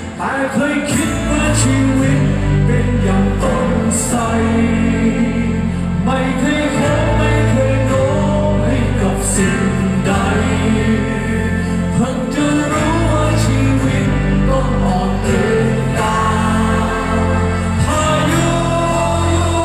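Thai rock band playing live in an arena, with electric bass, drums and singing over a full band mix.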